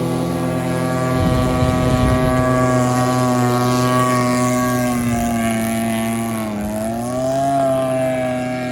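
String-trimmer engines of homemade RC racing boats running at high revs with a steady buzz. The pitch dips briefly about six and a half seconds in, then climbs again.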